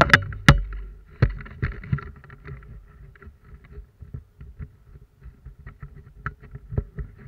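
Handling noise from a worn action camera: a few sharp knocks and bumps in the first half-second, then a run of smaller irregular knocks and rustles as the wearer moves, over a faint steady hum.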